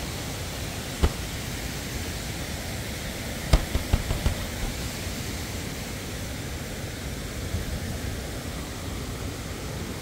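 Steady rushing of a nearby waterfall and stream, with a few sharp clicks about a second in and a cluster of them around the middle.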